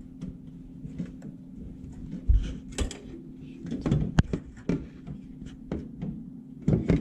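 Scattered clicks and knocks of plastic wiring connectors and control-panel parts being handled and pushed together, with a heavier thump about two seconds in and a sharp click about four seconds in, over a low steady hum.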